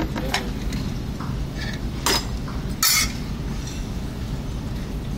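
Stainless-steel thali plates, bowls and tumblers clinking against each other as food is served, a few separate clinks with the loudest clatter about three seconds in, over a steady low hum of dining-room noise.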